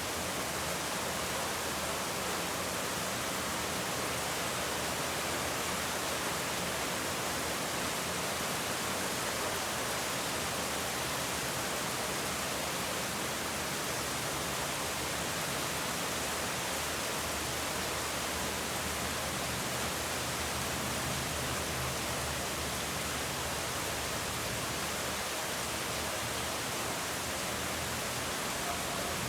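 Steady, even rain sound effect: a dense, unbroken hiss of rainfall with no distinct drops or thunder.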